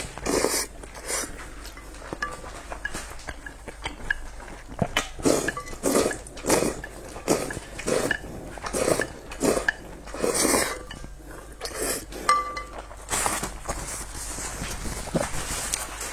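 Close-up eating of noodles: repeated wet slurps and chewing about every second, with small clinks of utensils against the bowl.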